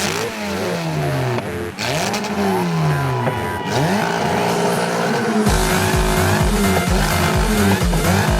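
Several motocross bikes revving and passing, their engine notes rising and falling in pitch, under music. A heavy bass beat comes in about five and a half seconds in.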